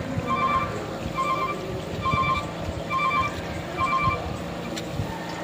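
Warning beeper on heavy machinery, most likely the excavator's alarm, sounding a short high beep about once a second, five times, and stopping about four seconds in. Under it is the low rumble of a diesel engine running.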